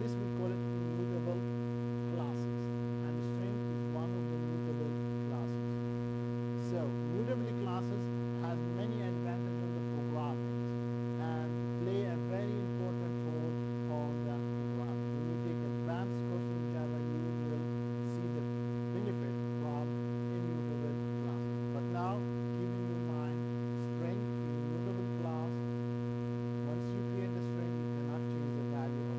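Steady electrical mains hum with a ladder of overtones, unchanging throughout. Faint, indistinct voices come and go beneath it.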